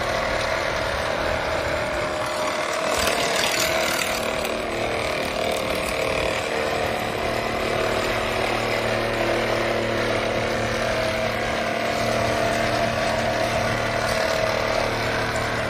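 Floor-covering removal machine (floor scraper) running steadily while stripping flooring, with a rougher, scratchier patch about three seconds in.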